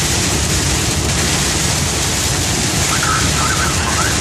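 Heavy rain and road spray beating on a moving vehicle, heard from inside the cab as a loud, steady rushing noise blended with tyre and wind noise.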